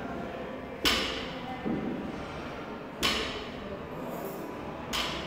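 Sharp knocks echoing in a gym hall: three loud ones about two seconds apart, with a softer knock between the first two.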